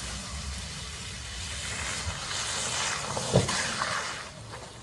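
A car sliding through a snowy corner: a steady hiss with a low rumble underneath that swells about two seconds in, and a single sharp knock a little past three seconds.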